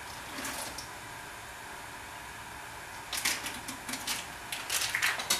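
Small plastic zip bag crinkling and rustling in short bursts as hops are shaken out of it into the boil kettle, starting a little past halfway.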